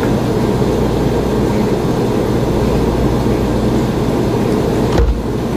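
Sparkling water being poured from a bottle into a cup of peach syrup base, a steady rushing, fizzing pour. About five seconds in the pour stops with a sharp knock.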